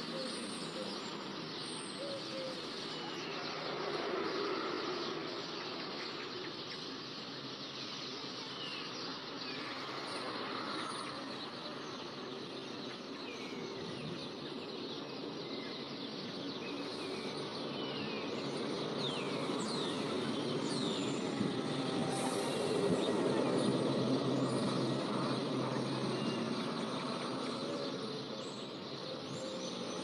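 Small birds chirping in short, scattered calls over a steady outdoor background noise that swells past the middle and then eases off.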